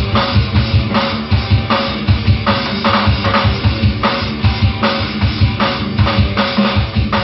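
Drum kit played in a steady beat, with kick drum and snare backbeat, along with the recorded song.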